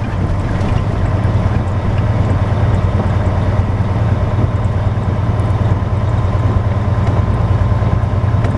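Semi truck's diesel engine running steadily while driving, a constant low drone heard inside the cab.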